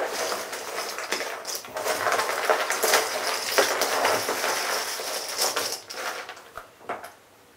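Cardboard jigsaw puzzle pieces clattering and sliding on a wooden table as a finished puzzle is broken up and swept into a loose pile, many small clicks at once. The clatter dies away about six seconds in, with a last click or two shortly after.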